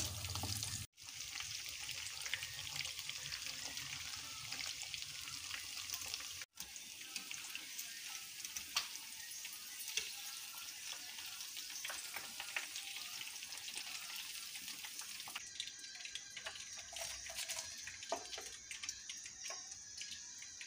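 Chicken pieces deep-frying in hot oil: a steady sizzle full of small crackles and pops. The sound drops out twice briefly near the start and grows fainter over the last few seconds.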